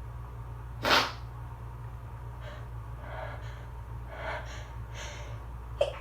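A person sneezing once, sharply, about a second in, then several short, catching in-breaths building toward the next sneeze, with a sharp catch of breath near the end, in an allergy sneezing fit.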